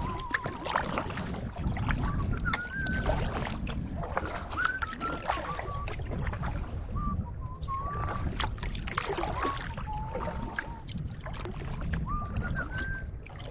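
Canoe paddling: paddle strokes and water splashing and dripping off the blade, under a man whistling a slow, wavering tune in short phrases.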